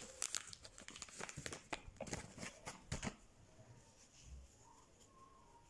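Crinkling and crumpling of a small white wad worked in the hands: a quick run of sharp crackles for about three seconds, then only faint rustling.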